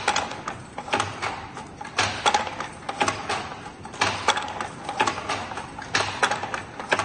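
Hand loom being worked: the batten and shuttle knocking and clacking in a steady rhythm, roughly one double knock a second.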